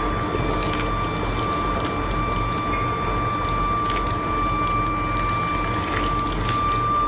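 Molten metal pouring from a foundry ladle into sand moulds: a steady rushing noise with scattered sharp crackles, over a constant high-pitched whine.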